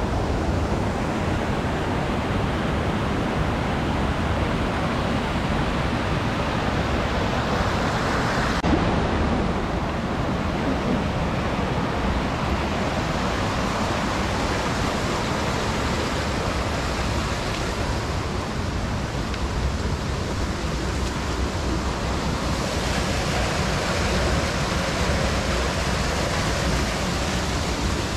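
Rushing water of a mountain stream and its small waterfalls, a steady loud rush.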